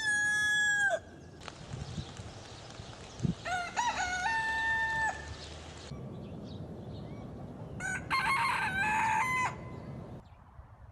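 Roosters crowing: one crow ends about a second in, a second long crow with a held final note follows in the middle, and a third, more broken crow comes near the end.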